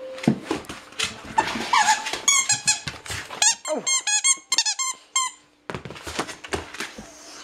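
A dog biting a squeaky rubber chicken-leg toy, setting off two quick runs of high squeaks, several a second, from about two seconds in to about five seconds in. Thumps and scuffling come before and after the squeaks.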